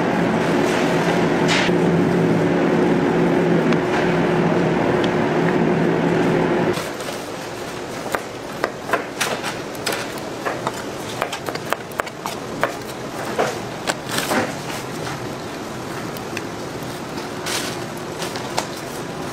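A steady machine hum with two low drones, which cuts off about a third of the way in. Then a knife chopping red bell pepper on a white cutting board: a run of sharp, irregular taps.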